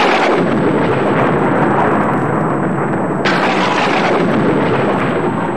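Thunder sound effect: a sudden loud crash that rumbles on, with a second sharp crack about three seconds in, fading near the end.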